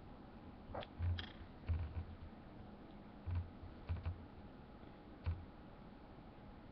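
Light clicks and soft knocks on a wooden tabletop, about seven scattered over the first five seconds, from hands and a paintbrush moving on the table while a fingernail is painted.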